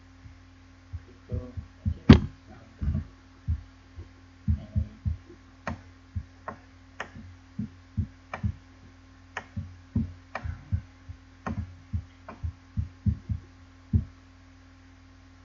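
Irregular dull thumps, one to three a second, over a steady low electrical hum.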